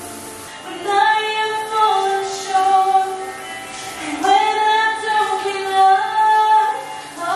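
Music with a woman singing long held notes, in phrases that begin about a second in, again around four seconds and near the end.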